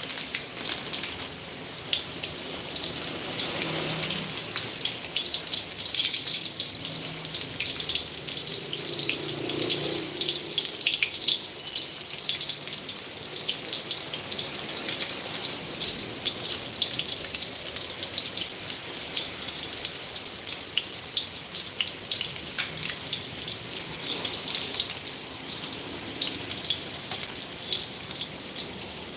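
Chicken meatballs frying in hot oil: a steady sizzle full of fine crackles, with a couple of faint low knocks from handling.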